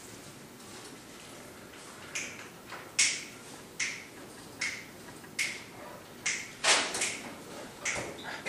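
Finger snapping in a steady slow beat, a little under one snap a second, starting about two seconds in.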